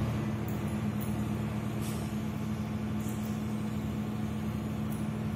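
Steady low engine drone, like a heavy vehicle idling, holding one pitch, with a few faint light clicks over it.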